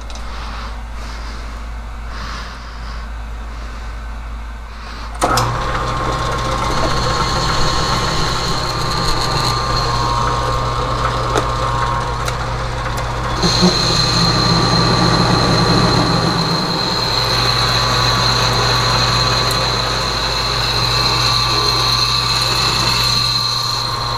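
A metal lathe boring out a heat-treated 4140 steel part with a boring bar. A low steady hum at first; about five seconds in the cut starts abruptly, giving a steady cutting sound with a high whine that grows stronger about halfway through and runs on to the end.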